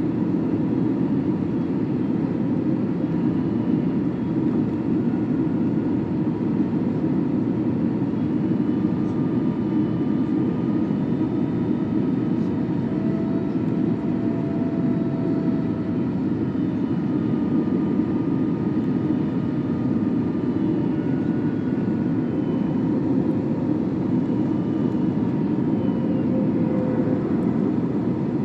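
Steady in-flight noise of an Airbus A321neo's CFM LEAP-1A engines and airflow, heard aboard on approach to landing, with faint thin tones that drift slightly in pitch.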